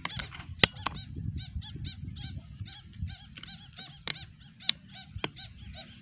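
White-breasted waterhens (koa/kuak) calling, a steady run of repeated 'kuak' notes, several a second, with a few sharp clicks, the loudest about half a second in.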